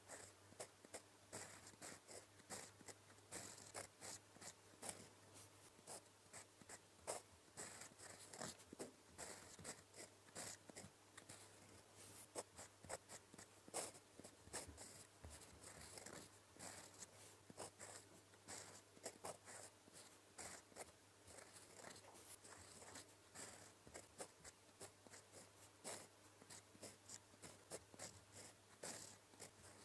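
Faint scratching of a steel fountain pen nib on paper, in many short, irregular strokes as Korean letters are handwritten.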